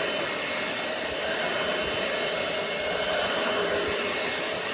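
ROOMIE TEC SlimVac cordless stick vacuum running steadily: a constant motor whine at a fixed pitch over the rush of suction air.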